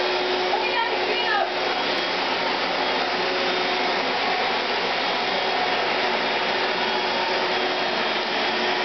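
A Black & Decker Dustbuster cordless handheld vacuum running steadily. A child's voice is heard briefly near the start.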